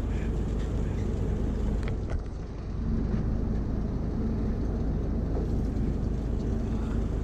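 Fishing boat's engine running steadily, a low drone that dips briefly a little after two seconds in.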